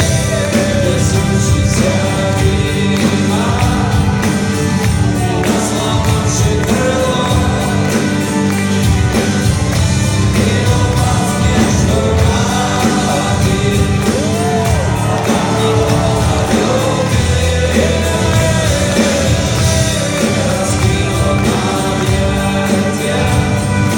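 Live rock band playing a slow song, with singing over the full band.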